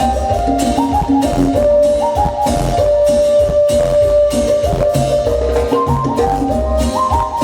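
Instrumental cumbia music: a melody that steps from note to note, held over a steady bass line and drums.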